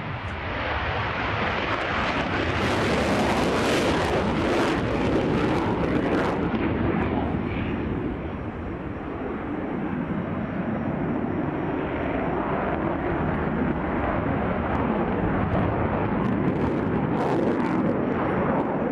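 Loud jet aircraft engine noise from a military jet flying a display pass, a steady, rough roar that swells, eases slightly and swells again, with crackling in the upper range.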